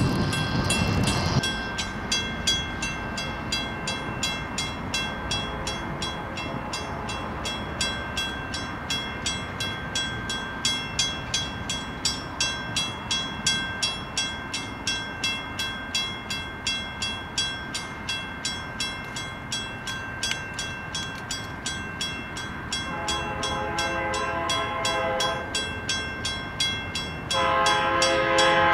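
Grade-crossing bell ringing steadily at about two strikes a second. An approaching diesel locomotive's horn sounds in the distance: one blast about 23 seconds in, then a louder second blast near the end. A low rumble fills the first second or so.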